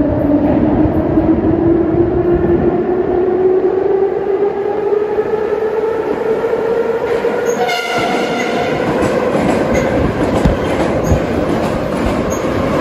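Subway train approaching through a tunnel, a whine rising steadily in pitch as it nears. It sounds its horn in one short blast about eight seconds in, then passes close by with a loud rumble and clattering wheels.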